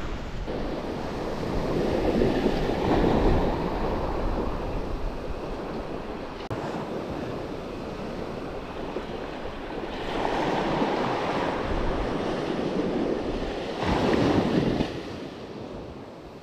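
Small surf breaking and washing up a sandy beach, swelling in several surges a few seconds apart, with wind buffeting the microphone.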